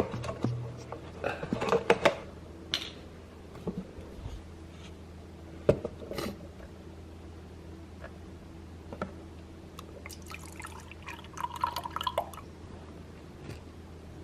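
Liquid egg whites being poured from a carton and measured out, with scattered clicks and knocks of handling and a denser stretch of pouring and clinking near the end, over a faint low steady hum.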